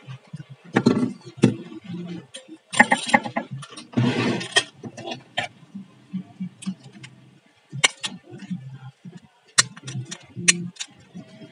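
Handling noise as a small circuit board and loose parts are picked up and moved about on paper: scattered clicks, taps and short rustles, the loudest rustles in the first half.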